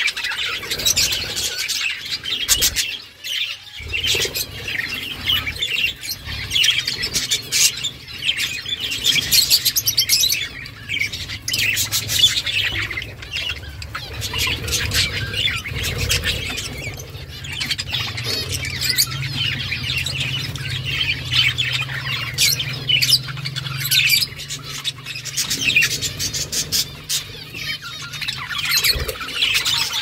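Several budgerigars chattering and chirping continuously, a dense mix of warbling calls and short sharp notes.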